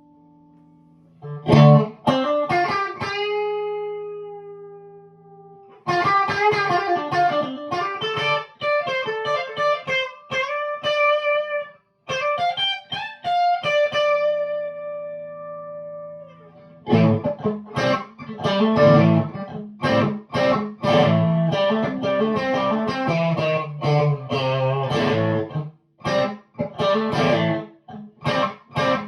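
Electric guitar played through a newly built 50-watt Overtone Special amplifier: a chord struck and left to ring down, then picked single-note lines, then denser chordal playing with a heavier low end.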